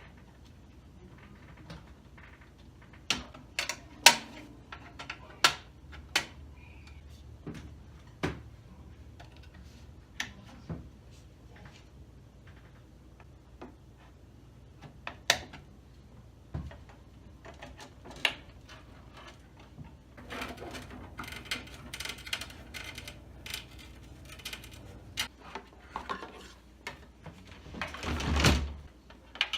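Handling noises: scattered sharp clicks and knocks, a stretch of rustling about two-thirds of the way in, and a louder scraping thud near the end, over a faint low hum that drops away shortly before it.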